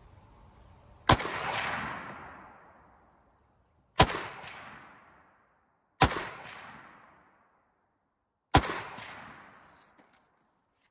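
Four single shots from a PSL-54C semi-automatic rifle in 7.62×54mmR, fired a few seconds apart. Each crack is followed by an echo that dies away over a second or two.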